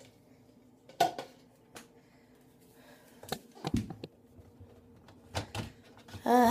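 Scattered light knocks and clatters of household objects being handled, a few seconds apart, over a faint steady hum. A short vocal sound near the end.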